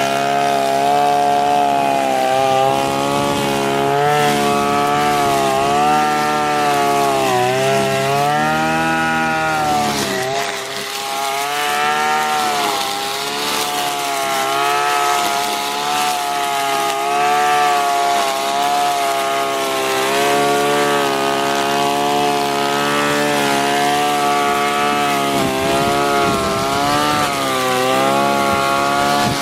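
Two-stroke brush cutter engine running at high speed. Its pitch dips and recovers over and over, most deeply a third of the way in, as the load of cutting grass comes and goes.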